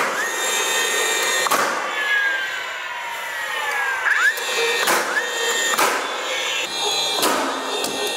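Power-tool trim work: a motor whines up to speed, holds a steady high pitch and winds down again several times. About four sharp cracks, like nail-gun shots, come in between.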